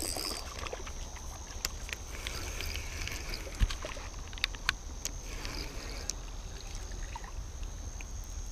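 Water splashing and sloshing as a hooked fish is brought in, with scattered sharp clicks and one thump about three and a half seconds in. Night insects trill steadily behind it.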